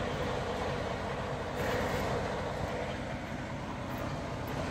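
Semi-truck diesel engine idling steadily, a low even rumble, with a brief rush of noise about one and a half seconds in.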